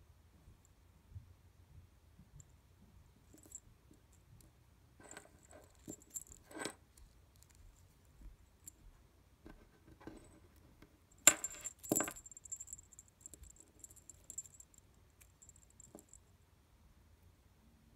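Small metal jingle bells on rooster souvenir charms jingling, with the charms' square bases clicking on a wooden tabletop as they are handled. The loudest jingles come about two-thirds of the way through, ringing on briefly.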